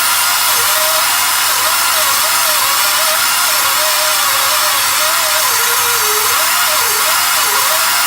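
Pneumatic air cutter running continuously while cutting through a hardened steel sway bar end link bolt: a loud, steady hiss with a pitch that wavers up and down as the load on the tool changes.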